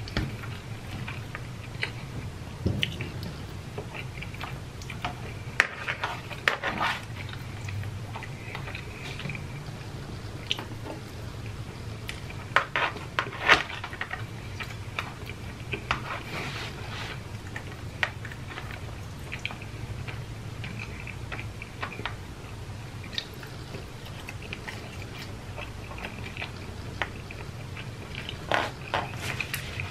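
Close-up chewing and biting of pasta, with scattered sharp clicks and scrapes of a metal fork in black plastic takeout trays, bunched in a few busy spells.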